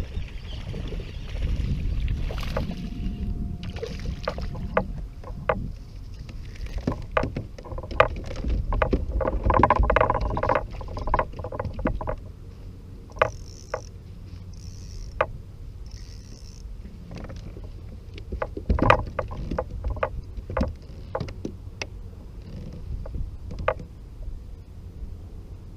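Scattered knocks and clicks of gear being handled against a kayak's hull, busiest a third of the way in, over a steady low rumble.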